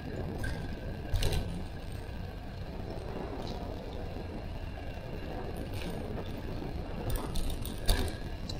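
Bicycle ride noise: a steady rumble of tyres on the road and wind, with sharp rattles about a second in and again near the end.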